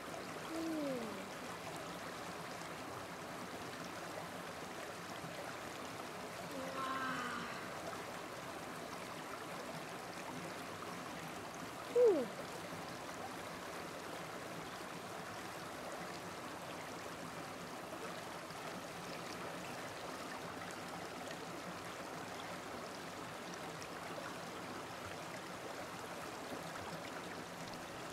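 Steady flow of a shallow stream running over rocks. A few short falling sounds rise above it; the loudest is brief and comes about twelve seconds in.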